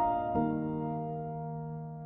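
Soft piano music: a chord struck about half a second in, held and slowly fading.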